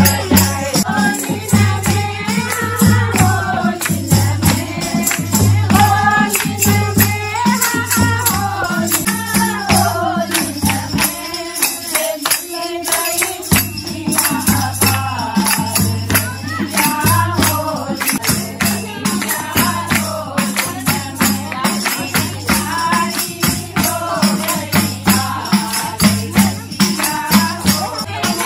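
A group of women singing a Holi folk song together, accompanied by a steady dholak drum beat and hand clapping. The drum drops out for a couple of seconds near the middle, then comes back in.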